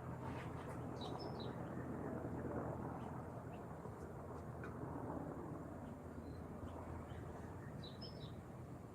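Small birds giving a few short, high chirps, a cluster about a second in and another near the end, over a steady low hum.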